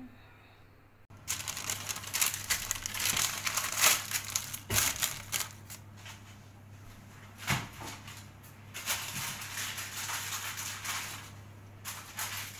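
Packaging crinkled and rustled in the hands, starting about a second in and going on in bursts with brief pauses.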